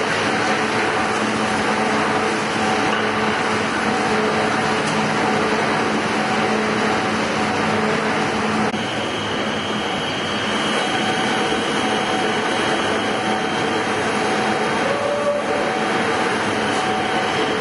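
Heavy lathe running: steady mechanical noise with several constant humming tones. A high, thin whine joins in about nine seconds in.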